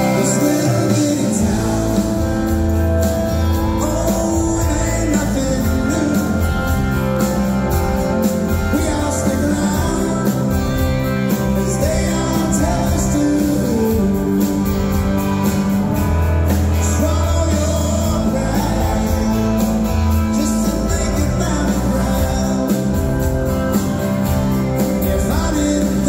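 Live Southern rock band playing a song with a lead vocal over guitars, bass, drums and keyboards, heard from the audience in a theater hall.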